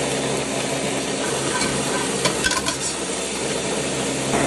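Countertop blender running steadily, its motor humming as it grinds toasted morita chiles. A few light clicks come around two and a half seconds in.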